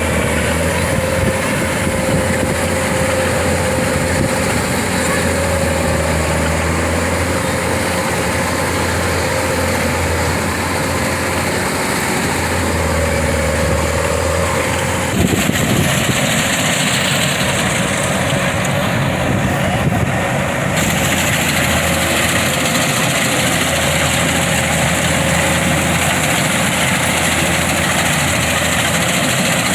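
Kubota DC-105X combine harvester's diesel engine running steadily. The tone of the noise shifts abruptly about halfway through.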